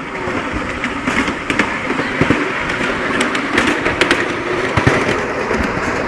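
Ride-on miniature railway train running along its track: a steady rolling rumble of wheels on rails, broken by irregular clicks and clatters.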